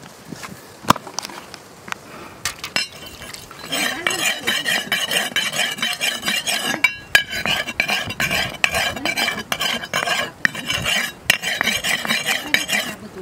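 Large metal fish-cutting blade scraping and clinking in a fast, ringing rasp that starts about four seconds in and keeps going for about nine seconds. Before it come a few light clicks and one sharp knock about a second in.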